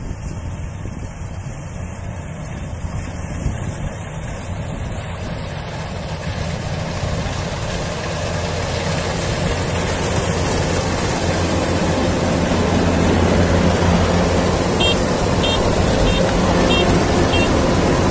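Kubota DC-93 rice combine harvester's diesel engine running steadily while it cuts, growing louder as the machine comes close. Five short high pips sound near the end.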